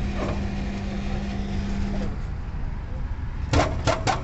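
Electric rebar bending machine humming steadily; the hum cuts off about halfway through. Near the end come three sharp clicks in quick succession as control-panel buttons are pressed and the switchgear engages.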